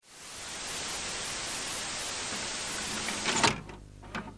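Static hiss as an intro sound effect, like an untuned TV. It fades in, holds steady, then cuts off sharply with a couple of clicks about three and a half seconds in, leaving a faint low hum.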